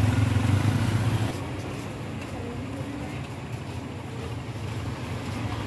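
Street traffic: a motorcycle passes close by, its engine loud for about the first second before it drops away, leaving a steadier, quieter hum of small motorcycle engines and road noise.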